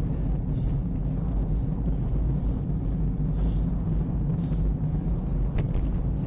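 Steady wind rumble on an action camera's microphone while riding a bicycle, mixed with road noise.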